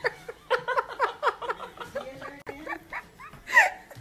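A rapid run of short, high-pitched vocal calls, several a second, with one louder cry near the end.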